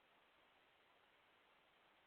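Near silence: a faint, steady hiss of the recording's noise floor.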